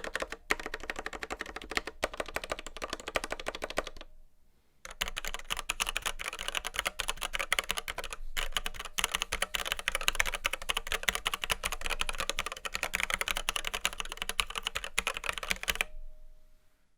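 Fast, continuous typing on a Red Square Keyrox Classic TKL v2 mechanical keyboard with linear Gateron Red switches and PBT doubleshot keycaps. The typing pauses briefly about four seconds in, then resumes and stops about a second before the end.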